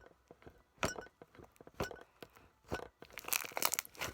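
Slime being squeezed and stretched by hand, giving sharp pops about once a second, then a quick run of crackling clicks near the end.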